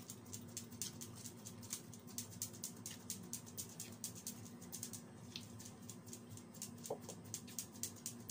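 Faint rapid clicking, several ticks a second, over a low steady hum, with one brief squeak about seven seconds in.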